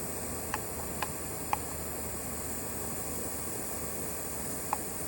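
Steady hiss of a camp stove burner under the pan, with four light clinks of a wooden spoon against the metal cook-set pan as eggs are stirred: three about half a second apart in the first two seconds, one near the end.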